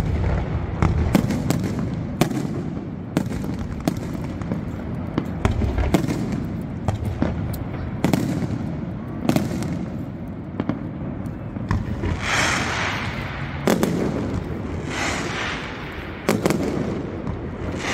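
Aerial fireworks display: an irregular string of sharp bangs from shells launching and bursting, with longer crackling hisses rising three times in the second half.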